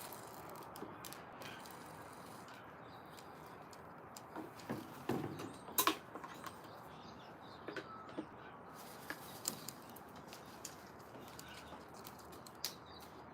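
Outdoor bird ambience: a few faint bird chirps over a steady background hiss, with scattered sharp taps and clicks, the loudest cluster about five to six seconds in.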